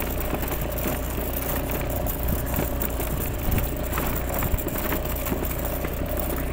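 Motorbike engine running steadily as the bike rides over a rough cobblestone track, with a constant low rumble and irregular knocks and clatter from the stones.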